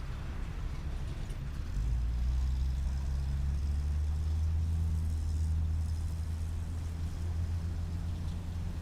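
Traffic at a busy city intersection: a low engine rumble, likely from a large vehicle close by, swells about two seconds in and holds steady, over a faint background hiss of traffic.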